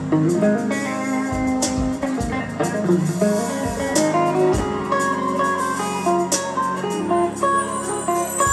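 Live band music: an electric guitar plays a lead melody of quick stepping notes over bass guitar and drums, with kick-drum hits and occasional cymbal crashes.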